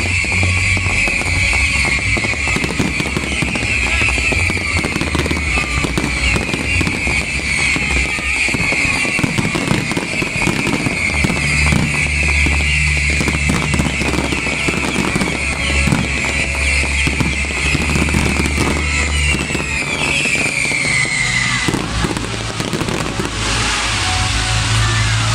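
Fireworks crackling and bursting continuously, with a dense sizzling crackle that stops about 22 seconds in. Music with a steady bass line plays along with them.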